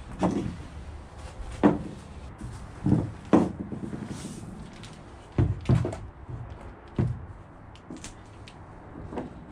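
About seven sharp knocks, unevenly spaced, from a steel pry bar levering and tapping against wooden blocks at the foot of a foam-core bulkhead panel.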